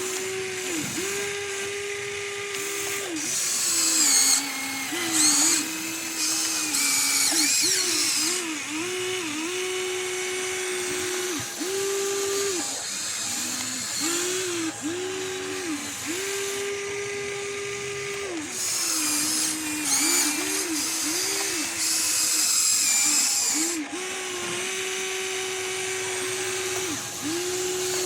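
Small electric motors of a radio-controlled construction model whining as they are worked. The pitch rises, holds and drops again and again as the motors start, load up and stop, with bursts of high gear whirring.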